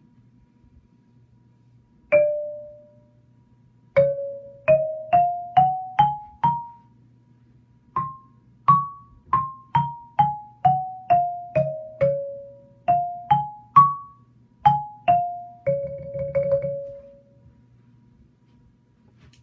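Xylophone played with yarn mallets: a single note, then a one-octave major scale going up and back down, about two notes a second, each note ringing briefly. A few more notes follow, and it ends on a roll on the low starting note.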